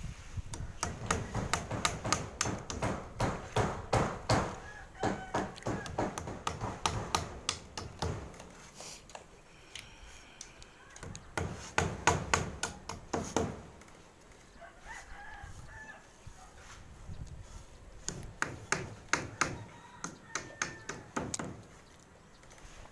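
Hammer blows at the roof edge, in quick runs of sharp strikes with a couple of pauses, nailing insulation foam and roofing sheet down onto the wooden roof framing.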